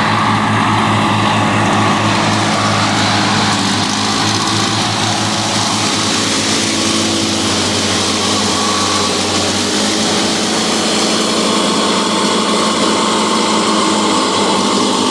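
Several lawnmower engines running together in a steady, loud drone. About ten seconds in, the low throb eases while the rest keeps running.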